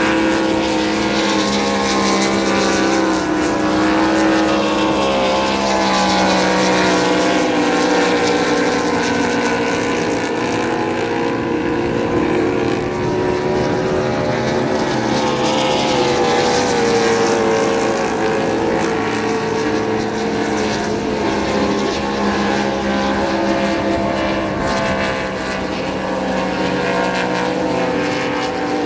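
Supercharged 6-litre race boat engines running flat out at racing speed: a loud, steady engine drone of several stacked tones whose pitch drifts slightly as the boats pass.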